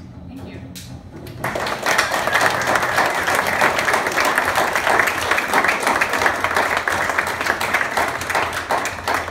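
The low notes of background music trail off, then about a second and a half in an audience starts applauding: dense clapping from many hands that keeps up to the end.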